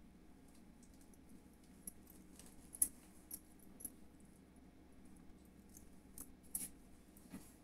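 Faint, irregular light clicks and ticks, about half a dozen, loudest about three seconds in, from fingers tapping and handling a smartphone's touchscreen, over a faint steady hum.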